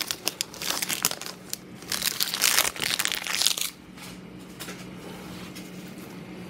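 Shiny foil wrapper of a trading-card pack crinkling and crackling as it is torn open and pulled off the cards. The crinkling stops after about three and a half seconds, leaving a low steady hum.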